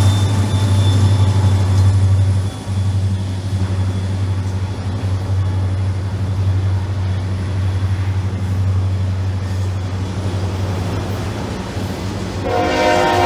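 Diesel freight train running with a steady, heavy low rumble. Near the end a locomotive horn starts to sound, a chord of several tones.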